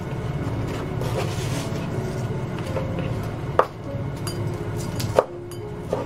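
Kitchen knife cutting crisp grilled fried tofu on a cutting board, with two sharp knocks of the blade hitting the board, one about three and a half seconds in and one about five seconds in, over a steady low hum.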